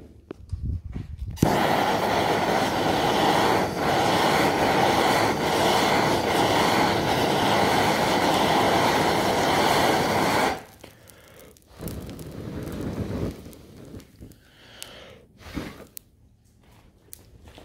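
Gas blowtorch flame burning steadily against a car door panel, heating the old paint and body filler to soften it. The torch starts about a second in and cuts off abruptly around ten seconds in, leaving faint irregular knocks.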